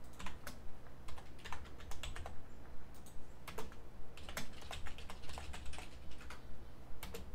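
Typing on a computer keyboard: a run of irregular key clicks as a file name is typed in, over a low steady hum.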